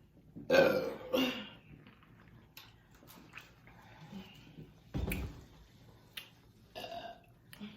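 Two loud human burps in quick succession, about half a second and a second in. A softer, short, dull thump comes about five seconds in.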